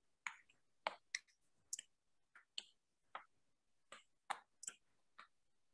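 Faint, irregular clicks and taps, about two or three a second.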